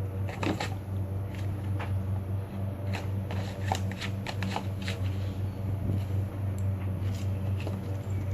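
Cardboard tissue box and tissues crinkling and tearing in scattered rustles and crackles as a Cavalier King Charles Spaniel puppy chews and shreds them, over a steady low hum.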